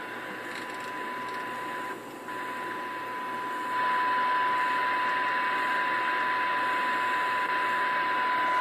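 Uniden Bearcat 980SSB CB radio's speaker receiving a weak AM signal: a steady 1 kHz test tone under loud hiss, as the signal generator is turned down toward the 12 dB SINAD sensitivity point. The tone drops out for a moment about two seconds in, and the hiss gets louder a couple of seconds later.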